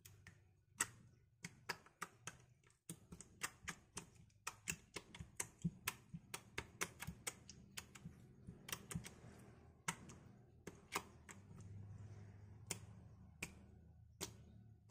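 Slime being poked and pressed with fingertips on a table, giving sharp irregular clicks, about two a second.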